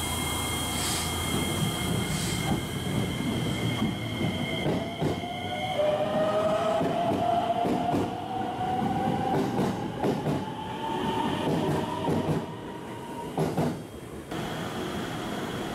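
JR West 225 series electric train pulling out of the station: the motors' whine rises steadily in pitch as it accelerates, with wheels clicking over the rail joints. The sound drops away near the end as the last car leaves.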